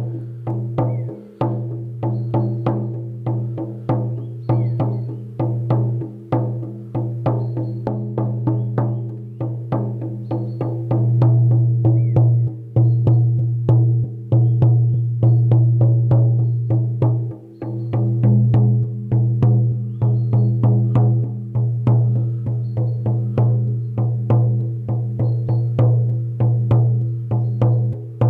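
16-inch deerskin shaman frame drum struck with a firm beater in a steady beat of about two to three strokes a second, each stroke ringing with a deep boom and overtones above it. The playing grows louder about eleven seconds in.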